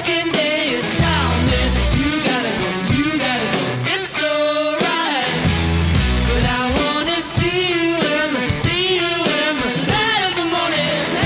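Background music: a song with a sung vocal over a band.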